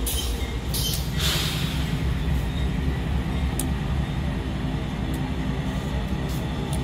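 Diesel locomotives of an MRS ore train passing close by, their engines running with a steady low rumble, with a short hiss about a second in.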